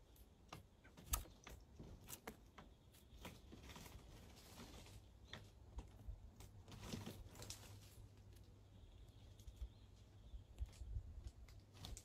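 Near silence with faint, scattered clicks and light taps over a low hum.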